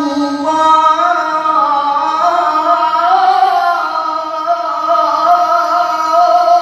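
A man reciting the Qur'an in the melodic tilawah style, holding one long unbroken phrase whose pitch steps up and down in ornamented turns.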